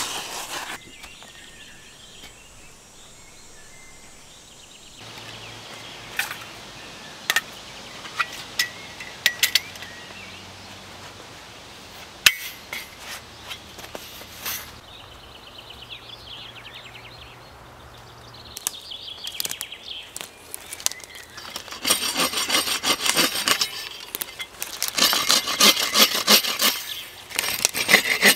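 Stones knocking and clinking against each other as they are set into a fire ring. Then, near the end, a folding bow saw cutting into a tree branch in quick back-and-forth strokes, the loudest sound here.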